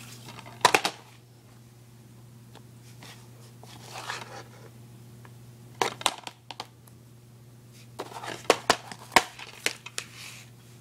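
Plastic DVD cases being handled and opened: sharp clicks and snaps of the plastic, with a soft shuffle midway and a quick run of snaps near the end as a case is opened. A steady low hum runs underneath.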